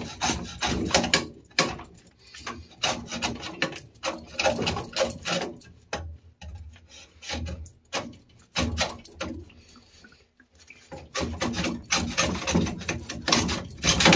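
Hacksaw cutting galvanized steel water pipe: quick back-and-forth rasping strokes, about three or four a second, in runs with short pauses.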